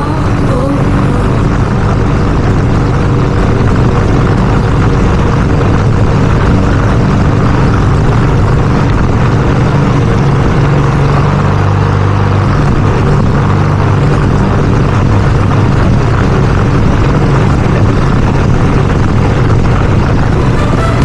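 Small petrol engine of lawn-care equipment running steadily at a constant speed.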